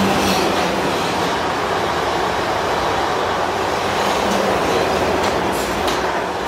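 South Western Railway passenger train passing at speed, a loud steady rush of wheel and air noise. A few sharp clicks come from the wheels in the second half.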